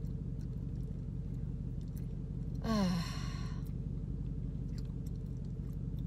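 A woman sighs once, a breathy exhale falling in pitch, about two and a half seconds in, over a steady low hum inside the car.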